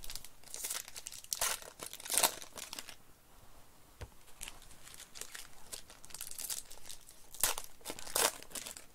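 Foil wrappers of trading-card packs crinkling and tearing as they are ripped open by hand, with louder rips about a second and a half and two seconds in, and twice more near the end.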